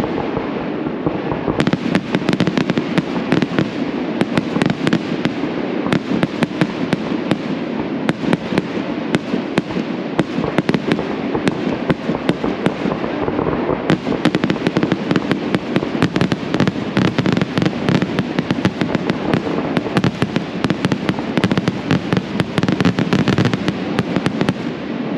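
Fireworks display: aerial shells bursting in a dense, continuous barrage, many bangs and crackles a second overlapping into a steady rumble.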